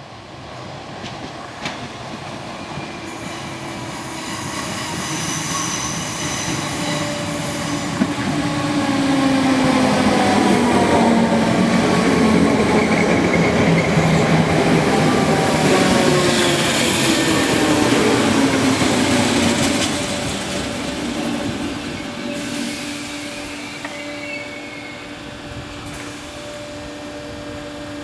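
Merseyrail PEP electric multiple unit running into the station: the sound builds for several seconds, its motor whine falls in pitch as it slows through the loudest part, and it settles to a steady electrical hum as it comes to a stand.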